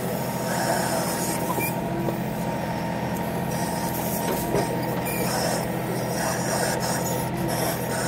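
John Deere compact tractor's diesel engine running steadily while the backhoe's hydraulics swing the boom side to side.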